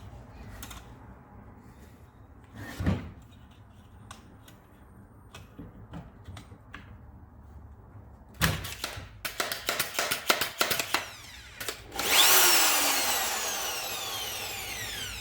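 Fiolent MF4-1100E hand wood router with a newly replaced outer bearing, briefly switched on about two-thirds of the way in; its motor whine falls steadily in pitch as it coasts down. Before that come a single thump and a quick run of clicks.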